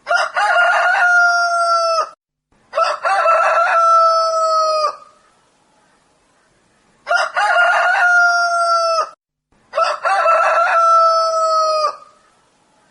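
Rooster crowing cock-a-doodle-doo four times, in two pairs of two-second crows. Each crow opens with short choppy notes and ends in a long held note that drops slightly in pitch at the end.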